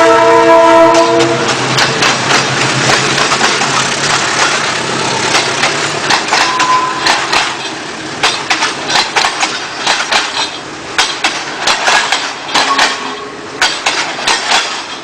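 A Philippine National Railways train's horn chord cuts off about a second in. The train then runs on with a fading engine drone and the irregular clatter of wheels over rail joints, the clicks growing sparser and the sound dying away as it goes.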